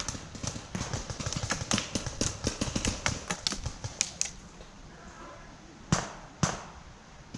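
Rapid crunching and crackling of a player moving through dry brush and leaves for about four seconds, then two sharp paintball marker shots about half a second apart.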